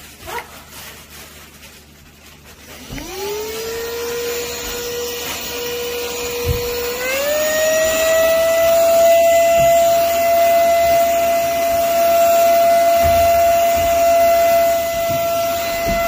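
Cordless handheld vacuum-blower's high-speed motor spins up with a rising whine about three seconds in and then runs at a steady high pitch. About seven seconds in the whine steps up to a higher pitch and holds there.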